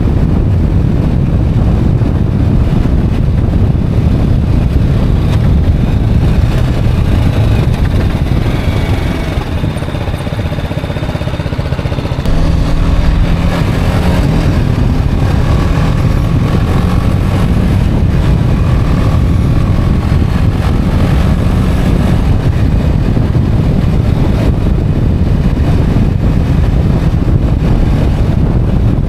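Motorcycle underway heard from the rider's seat: engine running under a heavy low rumble of wind and road noise. The noise eases for a few seconds about nine seconds in, then jumps back up suddenly about twelve seconds in.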